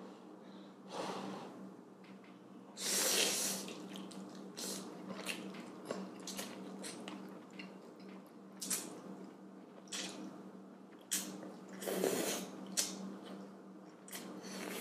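A person slurping spicy Korean fire noodles off chopsticks and chewing them: several wet slurps, the longest about three seconds in and another near twelve seconds, with short smacking clicks between.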